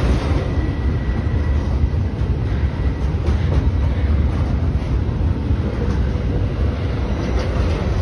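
Double-stack intermodal container well cars of a freight train rolling past: a steady, loud, low rumble of steel wheels on rail with faint scattered clicks. A thin high tone sounds briefly in the first two seconds.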